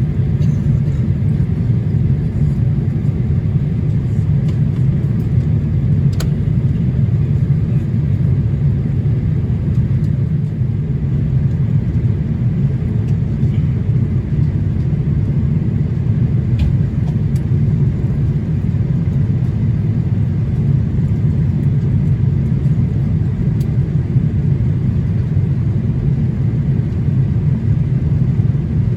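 Steady low rumble inside the cabin of a Boeing 787-8 Dreamliner in flight on approach: engine and airflow noise, unchanging throughout.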